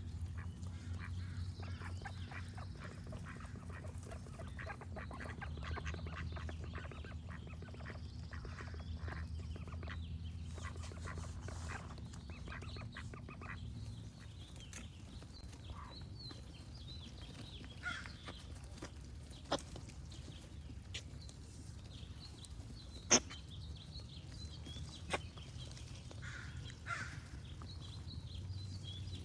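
Ducks quacking in rapid runs through the first half, with small birds singing higher up, the birdsong carrying on alone later. A few sharp clicks stand out in the second half, the loudest a little past the middle. A steady low rumble lies under it all.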